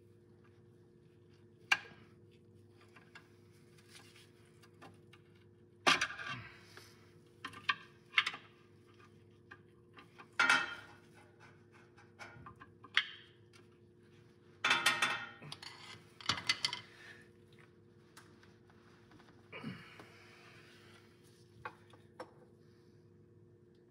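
Scattered metal clanks, knocks and scrapes of hand tools as a pry bar is worked against the flex plate to turn over an engine. The engine is seized and won't budge, so there is only irregular tool contact and no rotation.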